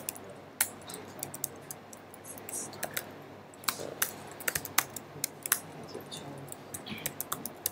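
Typing on a computer keyboard: irregular key clicks in short quick runs, with a lull of about two seconds near the start. A word is typed, part of it is deleted with repeated key presses, and it is retyped.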